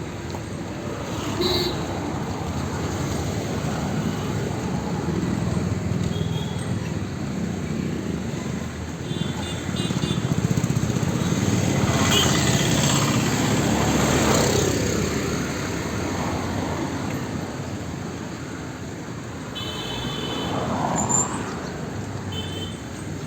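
Busy street traffic: a steady mix of passing vehicles' engines and tyres, with one vehicle passing loudest about twelve to fourteen seconds in. A few short horn beeps sound near the middle and towards the end.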